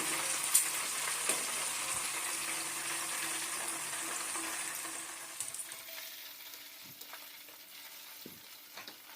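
Coated chicken pieces deep-frying in hot oil: a steady sizzle with a few sharp pops, fading quieter after about five and a half seconds.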